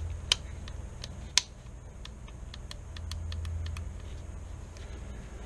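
Small metal rifle parts clicking as they are handled and worked during reassembly of a Marlin Model 9 Camp Carbine's fire control group: two sharp clicks in the first second and a half, then a run of fainter ticks.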